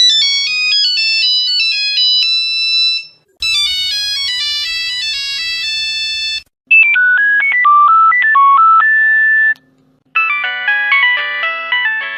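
A run of Nokia mobile phone ringtones: four different short melodies of bright electronic notes, each lasting about three seconds, separated by brief pauses. A faint low hum sits under the last two.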